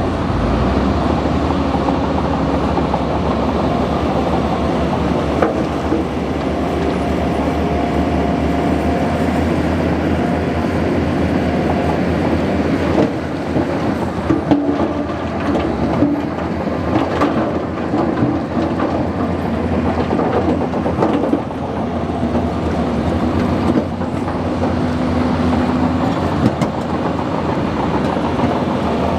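Bulldozer running steadily under load, with a droning engine and whining tones that shift in pitch, and irregular clanks and knocks that grow more frequent about halfway through.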